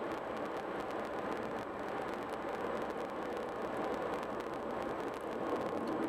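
Steady road noise of a car cruising at highway speed: an even rush of tyres on the pavement, with no breaks or sudden events.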